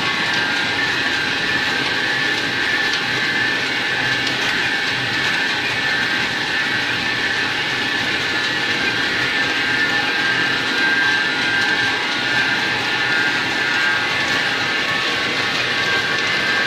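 PVC shrink-film printing machine running steadily: an even mechanical din from its turning shafts, rollers and drive, with several steady high whining tones over it.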